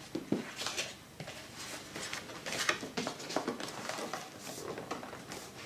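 Cardboard rustling and scraping as a graphics card's inner box is slid out of its printed outer sleeve, with scattered light taps and clicks.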